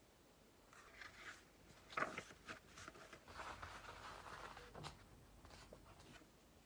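Faint paper handling: a kraft-covered notebook being picked up and opened, its pages leafed through with soft rustling. There are a few small taps and clicks, the sharpest about two seconds in and just before five seconds.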